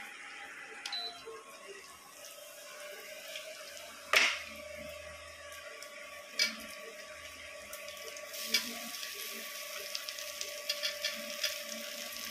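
Hot oil sizzling and crackling in a wok as cut potato pieces are dropped in by hand. Three sharp metal clinks of kitchen utensils come about two seconds apart.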